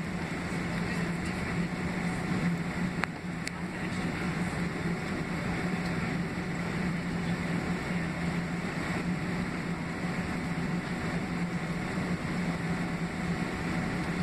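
Cabin noise of a Boeing 767-300ER taxiing on its two General Electric CF6-80C2B6 engines: an even rumble and hiss over a steady low hum, with a single faint tick about three seconds in.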